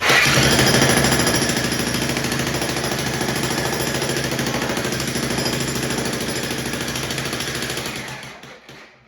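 Jackhammer hammering rapidly and steadily into concrete, dying away about eight seconds in.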